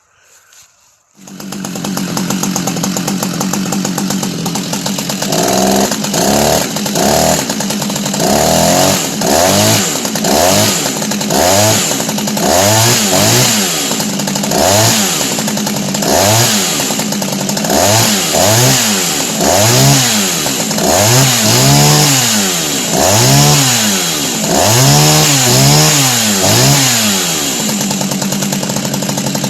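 Jonsered 70E two-stroke chainsaw running, its engine note starting a little over a second in. From about five seconds in it is revved up and down about once a second for some twenty seconds, then it settles back to a steady lower note near the end.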